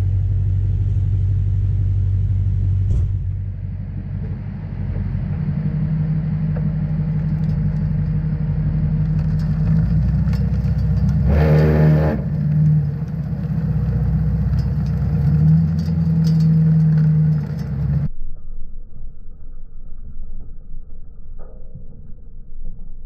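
Truck-mounted V-box salt spreader at work, the truck's engine and the spreader running with a steady low hum while the spinner throws salt onto the pavement. A brief louder burst comes about halfway through, and about three-quarters in the hum cuts off abruptly, leaving a quieter, rougher rumble.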